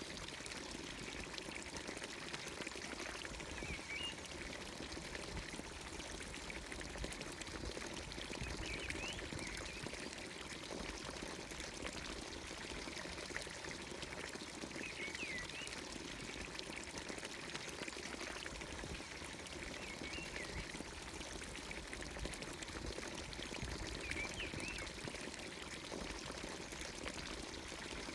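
Village fountain water pouring steadily from its spout into the trough below, with a short bird chirp every few seconds.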